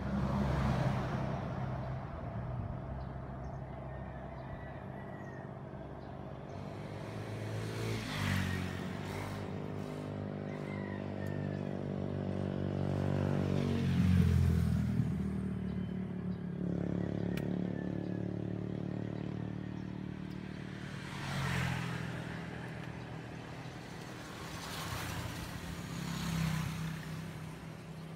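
Engines of passing motor vehicles droning and swelling several times as they go by, the loudest about halfway through, with a few faint clicks.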